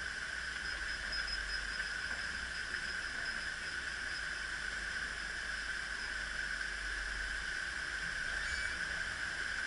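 Water gushing steadily through the open sluices of a canal lock's upper gates as the chamber fills, a continuous rushing hiss.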